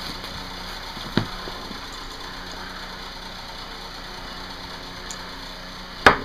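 A steady low hum and hiss, broken by a sharp click about a second in and a louder, sharper click near the end.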